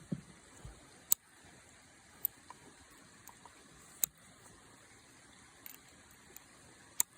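Heritage Rough Rider single-action revolver being loaded with .22 Magnum cartridges: four sharp metallic clicks spread over several seconds, with fainter ticks between, as rounds go into the cylinder and it is turned.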